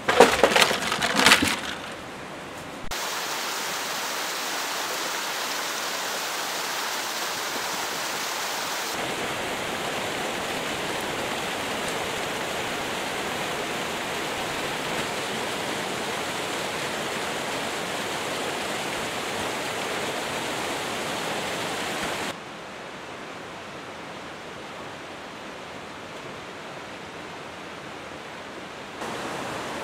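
Steady rushing of a mountain stream, its level and tone jumping abruptly a few times. At the very start, a quick run of several loud knocks.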